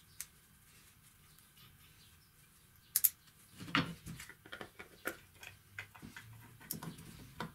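Light clicks, taps and knocks of a metal hand vise and a plywood stand being handled and fitted together on a wooden bench: a sharp click about three seconds in, then an irregular run of small knocks.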